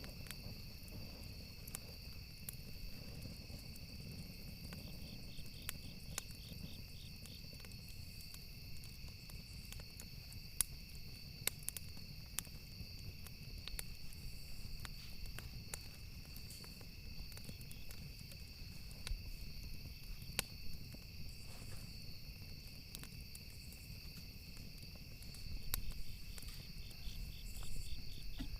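Small campfire crackling, with scattered sharp pops, over a steady background of chirping crickets.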